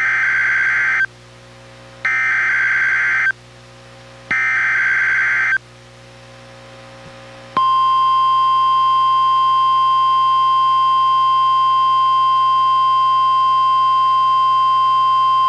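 NOAA Weather Radio emergency alert heard through a Reecom R-1630 weather radio: three one-second bursts of digital SAME header data tones about a second apart, then, a couple of seconds later, a long steady 1050 Hz warning alert tone, the signal that a warning is about to be read.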